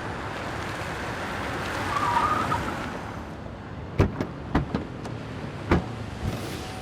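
A car drives by or pulls up, its noise swelling about two seconds in and then dying away. A few sharp clunks follow in the second half.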